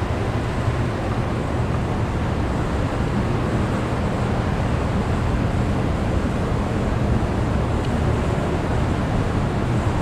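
Harris Badger two-ram baler's hydraulic power unit running with a steady low drone and hum.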